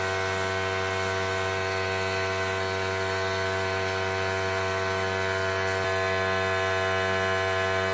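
An electric motor running steadily: a constant hum that holds one pitch without rising or falling.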